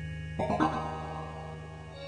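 Ambient synthesizer music: a low sustained drone, with a quick pair of keyboard notes struck about half a second in that ring and fade.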